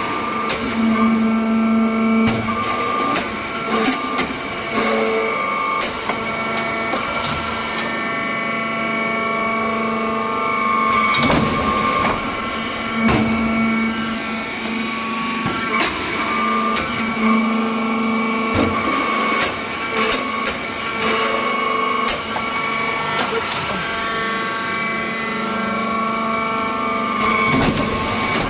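Hydraulic salt block press machine running through its pressing cycles. A steady whine from the machine is broken by repeated knocks and clanks from the press, and a higher whine rises twice.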